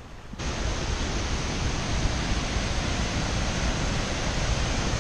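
Waterfall and the river below it gushing: a loud, steady rush of water that starts abruptly about half a second in.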